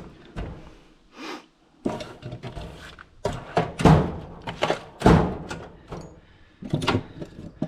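Hand tools clattering and knocking together, with several sharp thunks, as someone rummages through tools looking for a short screwdriver.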